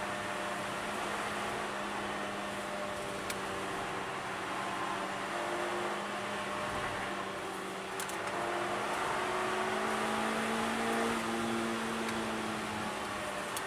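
Suzuki Swift Sport's four-cylinder engine running at speed under load, heard from inside the cabin over steady road and wind noise. Its pitch sags briefly about eight seconds in, then climbs again.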